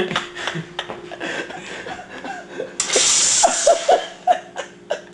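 A burst of hissing steam about three seconds in, lasting about a second, with short sharp clicks before and after it and brief laughing.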